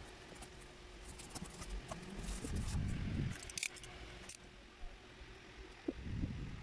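Snap-off utility knife cutting corrugated cardboard: scratchy scraping and clicking strokes of the blade, with dull bumps from the cardboard being pressed and handled.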